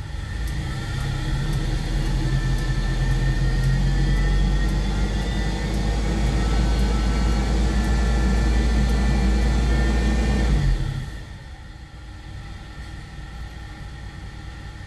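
Toyota Kijang 7K carbureted four-cylinder petrol engine, cold, held at raised revs of about 2000 rpm, then dropping back to idle about eleven seconds in. It is revved so the oil reaches the valvetrain, which the owner says quiets the cold-start tek-tek valve tick.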